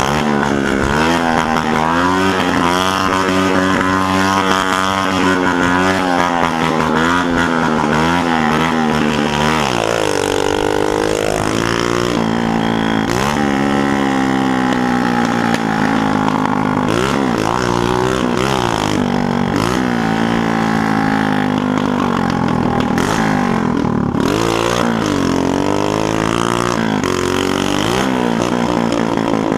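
Small motorcycle engine with a cut-down ('cerradão') exhaust, loud, ridden on the road. For about the first third it holds a wavering, roughly steady pitch. After that it revs up and drops back again and again as the rider accelerates and shifts.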